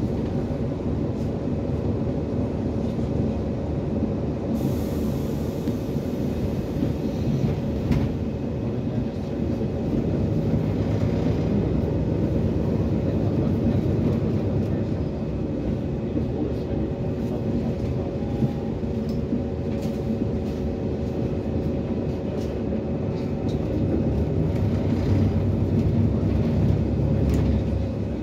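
Interior noise of an Autosan SanCity 9LE city bus under way: the steady drone of its Cummins ISBe diesel engine and Allison automatic gearbox with road rumble and light rattling of the fittings. A hiss lasting a few seconds comes about four seconds in.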